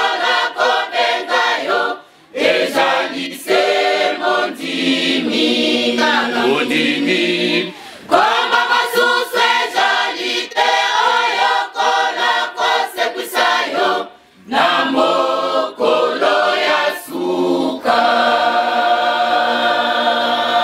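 A women's choir singing unaccompanied, in phrases broken by two short pauses, and holding a long chord near the end.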